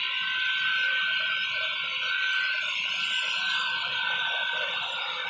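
Handheld hair dryer running steadily, a constant motor whine over the rush of blown air.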